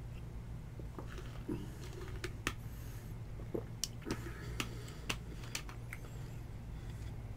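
Scattered light clicks and taps, about ten spread irregularly, over a steady low hum.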